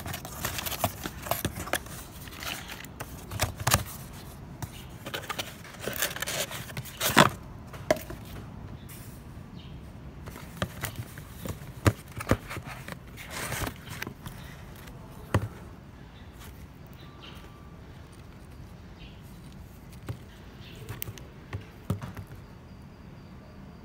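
Irregular clicks and knocks, many in the first half and sparser later.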